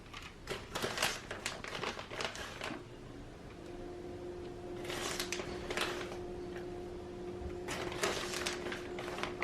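Light clicking and rustling as shredded mozzarella is handled and sprinkled over bread slices. About three and a half seconds in, a steady hum starts and keeps going.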